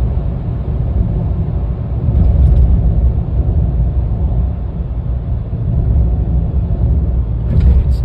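Steady low road and wind rumble inside the cabin of a Range Rover Evoque cruising at about 100 km/h and easing off slightly; no whistle from the refitted roof light bar stands out.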